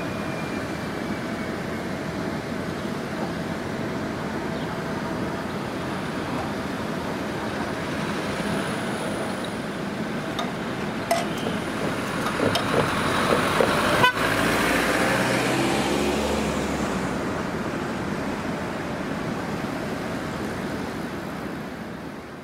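Automatic railway level crossing clearing after a train: a steady rumble with scattered clicks, then a sharp click a little past the middle followed by a low motor hum for a few seconds as the EEG-1 electric barrier drives raise the booms. Road vehicles then start across.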